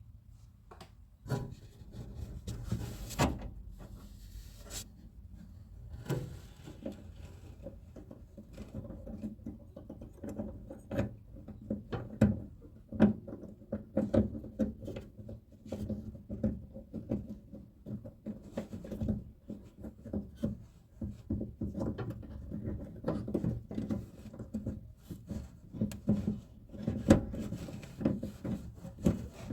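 Hands and tools working at a car door's outer handle and lock: a continual irregular run of small clicks, taps and rubbing, with a few sharper knocks.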